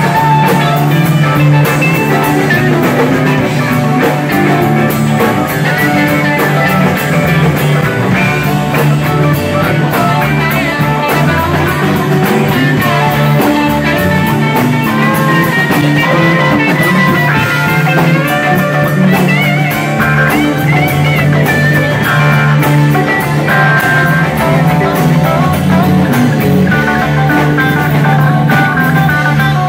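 Live jam band playing an instrumental jam: electric guitars over bass and two drum kits, at a steady level.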